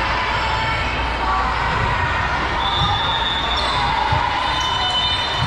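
Echoing gymnasium hubbub during a volleyball game: crowd and player voices, with a few dull thumps of the ball and short high squeaks.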